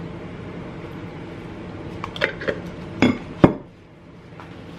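Glass salsa jar clinking and knocking against a bowl and the table as salsa is poured out and the jar is set down: four short knocks in the second half, the last the loudest.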